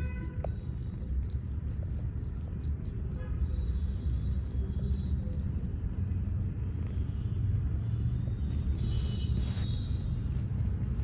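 A Persian kitten purring close up, a steady low rumble.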